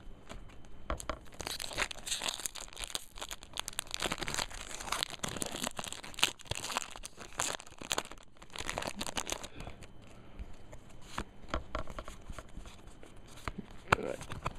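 Foil Pokémon booster pack wrapper being torn open and crinkled by hand, a dense crackling for most of the first ten seconds. After that come sparser crinkles and clicks as the cards are drawn out and handled.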